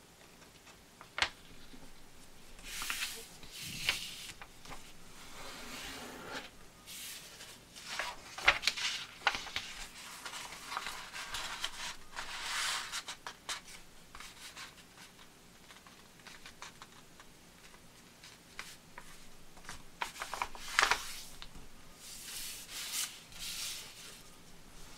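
A sheet of paper rustling and sliding on a cutting mat as it is folded and creased by hand, in irregular bursts with a few sharp clicks.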